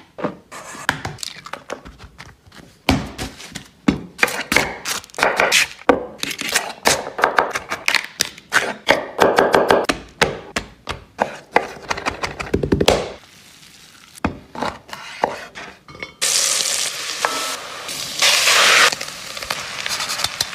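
A run of kitchen food-prep sounds: quick clicks, knocks and scrapes of handling and cutting for about thirteen seconds, then a steady pan sizzle from about sixteen seconds in, lasting about three seconds.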